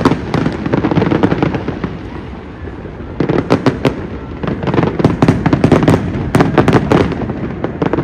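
Fireworks display: rapid volleys of bangs and crackling from bursting shells. The barrage eases for about a second and a half, then comes back thick for several seconds.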